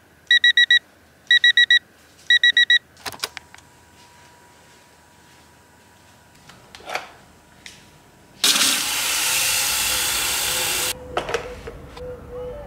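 Electronic alarm beeping in quick groups of four, stopping about three seconds in with a couple of clicks. Later a loud, steady rushing noise runs for about two and a half seconds and then cuts off, followed by a few small clicks.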